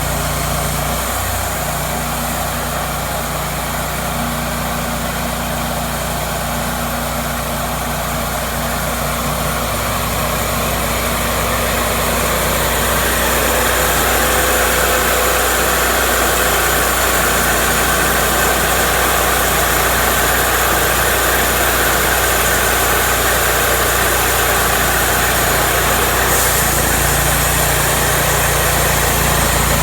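Cook's MP-32 portable sawmill running with its engine going steadily; about twelve seconds in the sound grows louder and brighter and stays that way.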